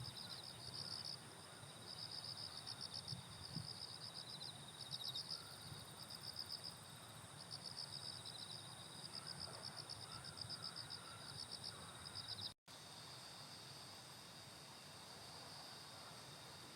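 Insects chirping in high-pitched, rapidly pulsed trills about a second long, repeated with short gaps. After a brief dropout about three-quarters of the way through, a steady high insect buzz carries on.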